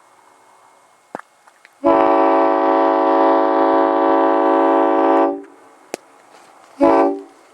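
Nathan Airchime M5 five-chime train horn, a well-tuned one, blown on compressed air: a click about a second in, then one steady chord blast of about three and a half seconds, and a short toot near the end.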